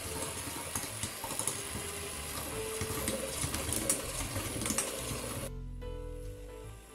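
Electric hand mixer with dough hooks running in pizza dough in a stainless steel pot, with occasional knocks as the hooks hit the pot; it stops about five and a half seconds in. Background music with steady notes plays under it.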